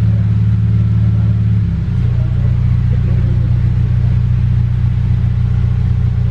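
Honda K20A2 inline-four engine idling on a chassis dyno just after a power pull: a steady low drone that settles to a slightly different pitch about two seconds in.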